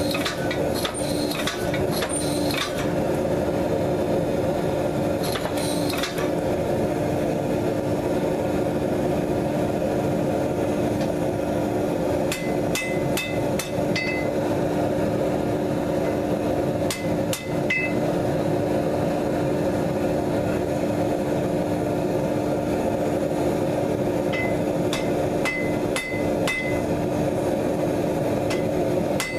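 Steady motor hum of a hydraulic forging press's power unit running. Bright metallic clinks and taps of steel on steel ring out in clusters: in the first few seconds, twice mid-way, and again near the end.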